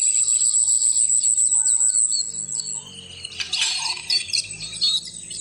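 A colony of weaver birds chirping and chattering, many quick high chirps overlapping. The chirping thins about halfway and swells again shortly after.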